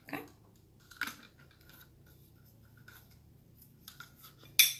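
Plastic trigger-spray head being fitted and screwed onto a glass bottle: faint scratching and ticking of the threads, with a sharper click near the end as it is closed.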